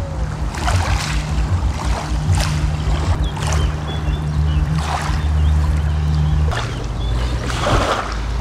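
Outdoor waterside sound: river water and wind gusting on the microphone, over a low bass drone that shifts in pitch, with a few faint high chirps.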